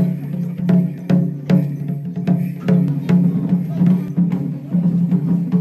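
Music with a steady percussive beat of sharp, wood-block-like strokes, a little over two a second, over sustained low tones.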